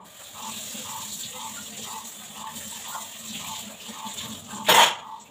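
Water running from a kitchen tap into the sink, starting at once as a steady hiss. Near the end, one sharp knock or clatter, the loudest sound.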